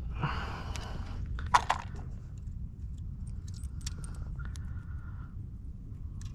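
Close handling of fishing tackle: a brief rustle, then a few sharp clicks of a metal snap swivel being opened and clipped onto a soft plastic lure, followed by scattered small ticks, over a steady low rumble.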